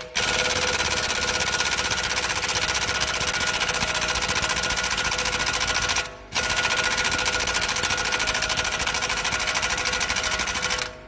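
Air impact wrench hammering on the front drive axle's hub nut in two long runs of about six and five seconds, with a short break between. The nut does not break loose.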